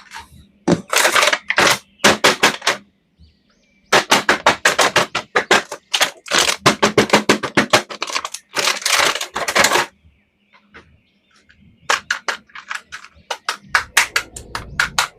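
Plastic toy packaging being handled and opened: rapid runs of sharp crackling clicks, coming in three bursts with short pauses between them.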